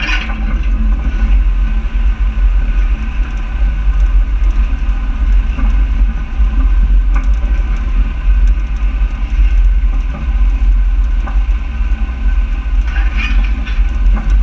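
A vehicle's engine running as it drives along a dirt track, with a heavy, steady low rumble of engine and ride on the camera. A few light knocks come in around the middle and near the end.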